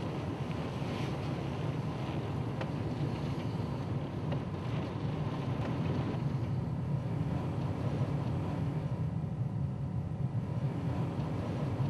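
A steady low rumble with a faint hiss over it, and a few faint clicks in the first half.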